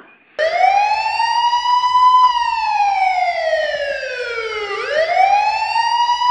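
A wailing siren that starts abruptly about half a second in. Its pitch climbs for about two seconds, falls slowly for about two and a half, then climbs again near the end.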